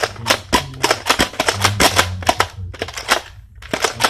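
Rapid sharp plastic clicks and clacks from a Nerf Mega toy blaster being handled and worked, several a second, with a short break about three seconds in.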